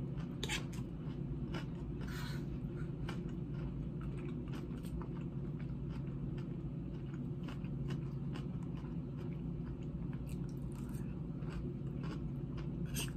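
Close-up chewing of a mouthful of raw salad: lettuce, cucumber, tomato and banana pepper. It sounds as irregular wet crunches and crackles over a steady low hum.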